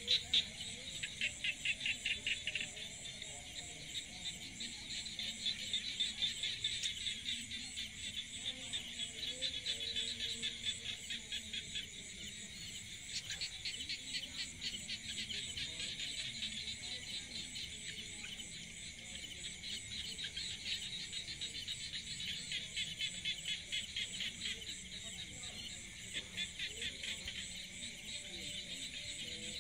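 A dense chorus of small calling animals in the forest, a high, fast-pulsing trill that swells and fades a little.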